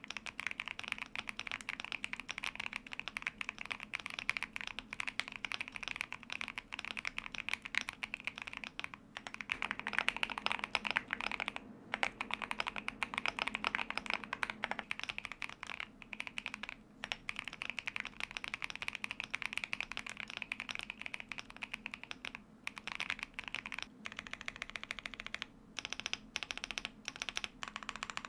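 Fast typing on a Luminkey75 gasket-mount mechanical keyboard in a thocky build, with case foam and PCB foam installed and lubed, filmed Gazzew Boba U4T tactile switches, giving a deep, thocky keystroke sound. The keystrokes run densely, with a few brief pauses.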